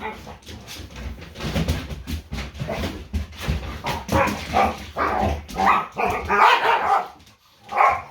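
Dog barking repeatedly in short bursts during rough play, the barks coming thicker and louder in the second half, with one last bark near the end.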